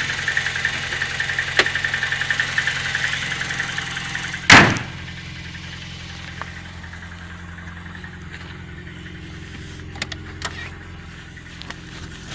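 VAZ 2109 engine idling cold with its bucket tappets clattering in a fast tick, which the owner puts down to worn tappet bores in the cylinder head and cold valve clearances. About four and a half seconds in the bonnet slams shut, and the idle goes on quieter and muffled under it.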